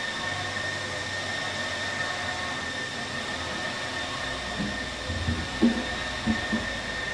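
Large-format UV hybrid printers running: a steady machine drone of fans and blowers with a thin, constant high whine. A few dull low knocks come in the second half.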